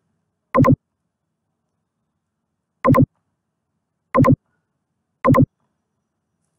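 Computer mouse clicking four times, each a quick doubled click of press and release.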